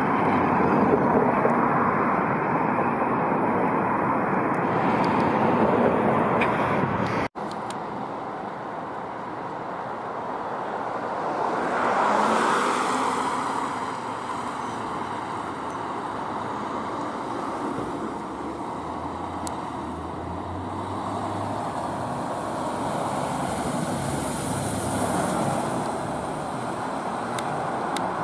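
Road traffic noise from cars passing, cut off suddenly about seven seconds in. It gives way to quieter, steadier road noise as a fire engine and other vehicles approach and pass, with no siren heard.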